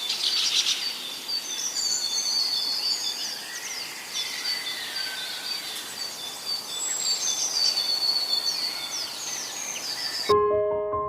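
Many birds chirping and calling over each other, with high whistled notes and quick rising and falling chirps. Piano music cuts in abruptly near the end.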